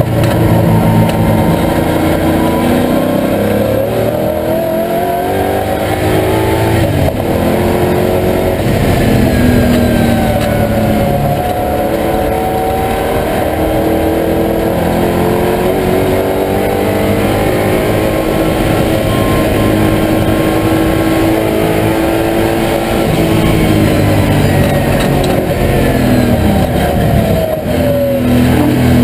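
TVR Tuscan's V8 engine at racing speed, heard from inside the cabin. The revs climb, drop sharply about a quarter of the way in, then hold and climb again before falling near the end.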